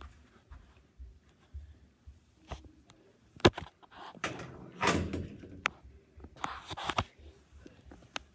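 Handling noise from a phone carried against a shirt: fabric rubbing over the microphone, with a few knocks and clicks, the sharpest about three and a half seconds in.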